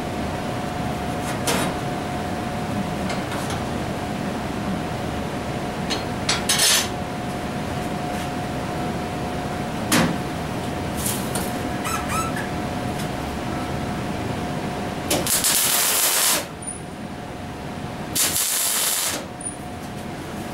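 Two short welding tack welds, each about a second of dense crackling hiss, near the end, after a few scattered metal clunks, over a steady background hum with a constant tone.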